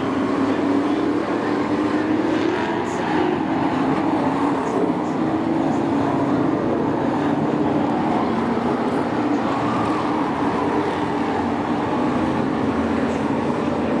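Race trucks' engines running around the track. It is a steady, loud drone whose pitch rises and falls gently as they circle.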